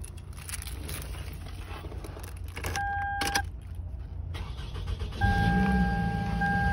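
Keys jangling on a keyring as the ignition key is turned in a 2005 Toyota Camry, with a brief electronic chime about three seconds in. A little after five seconds the engine starts and settles into a steady idle, with a steady chime tone sounding over it.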